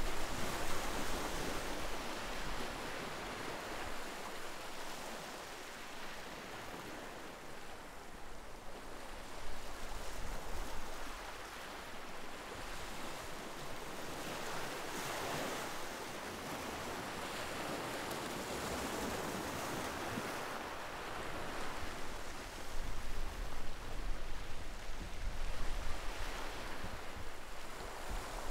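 Ocean surf: waves breaking and washing in as a continuous rushing noise that swells and fades every few seconds, with some wind rumble on the microphone toward the end.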